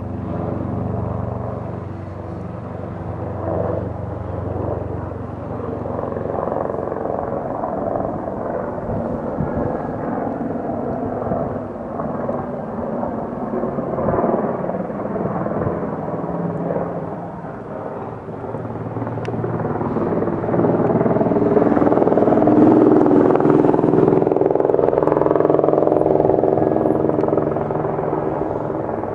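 Airbus/Eurocopter AS350 Écureuil single-engine turbine helicopter in flight, a steady rotor and turbine sound. It grows louder about two-thirds of the way in as the helicopter comes closer, then eases off slightly near the end.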